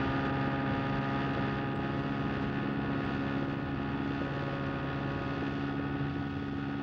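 Small outboard motor running at a steady speed, its pitch holding level throughout.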